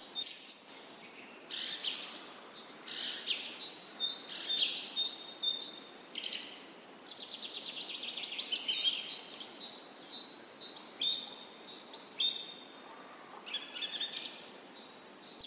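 Birds chirping and singing: a mix of short high chirps, quick sweeps and rapid trilled runs of notes.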